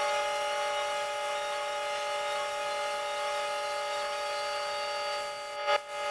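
Gravity-feed paint spray gun running with the trigger held, a steady whistling hiss of compressed air as paint is laid on. It breaks off briefly near the end and then starts again.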